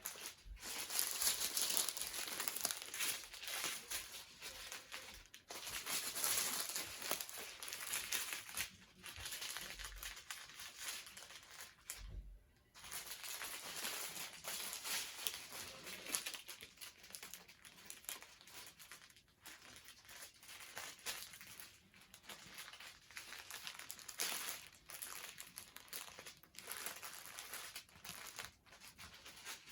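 Small plastic packets of diamond-painting drills crinkling as they are handled and sorted, with a brief pause about twelve seconds in.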